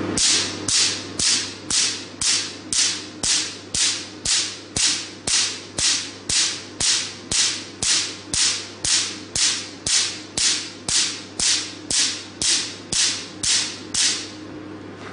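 Picosecond Q-switched Nd:YAG laser handpiece firing pulses into black test paper: a steady run of sharp, crisp snaps, about two a second, each with a short hiss, which stops about a second before the end. A steady low hum runs underneath.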